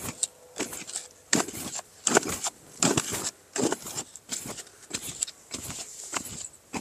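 A long-handled digging tool with a metal blade striking and scraping into a burrow in dry, sandy soil, in a steady run of short chopping strokes about twice a second, with loose sand and clods trickling between them.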